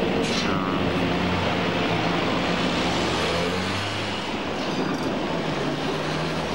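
Steady street traffic noise with a low, even hum as a PCC streetcar rolls through an intersection and cars pass, with a short falling sweep about half a second in.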